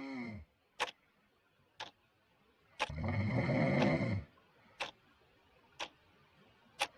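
A clock ticking about once a second, with a person snoring loudly. One long snore comes about three seconds in and lasts about a second and a half, and the end of the previous snore is heard at the very start.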